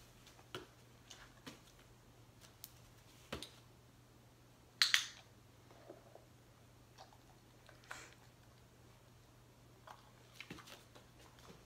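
Faint, scattered clicks and taps from a hand-target training session with a dog: hand and treat handling, the dog moving and mouthing a reward. One louder, sharp double click comes about five seconds in.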